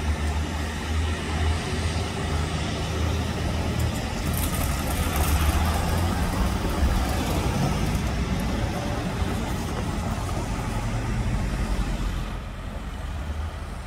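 Class 158 diesel multiple unit pulling out of a station, its underfloor diesel engines running with a heavy low rumble and wheel noise, the sound dying away near the end.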